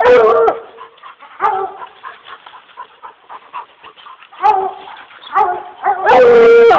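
Treed hunting dogs barking at the tree: single barks at the start, about a second and a half in, and twice more around the fifth second, then one long drawn-out bawl near the end.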